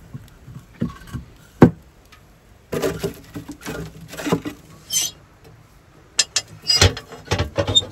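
Split firewood knocking and clattering as it is loaded into the firebox of a small steel sauna stove, with a run of sharp metal clanks near the end as the stove's door is handled and shut.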